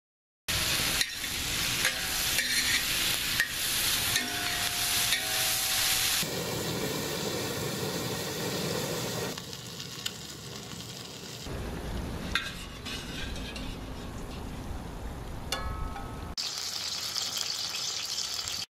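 Food frying and sizzling in a carbon steel disc pan, with the clicks and scrapes of stirring. The sound comes in several short clips and changes abruptly at each cut.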